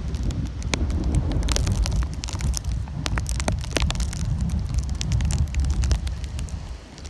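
Gusty tropical-storm wind buffeting the microphone in a loud low rumble, with scattered sharp crackles and ticks over it; it eases near the end.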